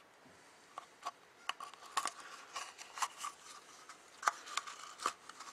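Light, irregular clicks and scrapes of a small pick tool and fingers working against an oil filter cap, prying the old O-ring off its groove.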